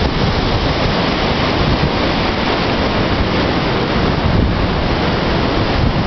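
Strong wind buffeting the microphone: a loud, steady rushing roar with no distinct tones or knocks.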